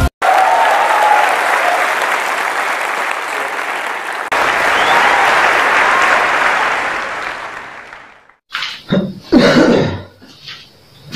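A large audience applauding, as even, dense clapping that changes abruptly about four seconds in and fades out after about eight seconds.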